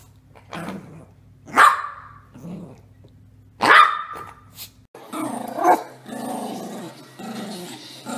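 Yorkshire terriers barking and growling in play: two sharp, loud barks about one and a half and nearly four seconds in, then a long run of rough growling with a yap partway through.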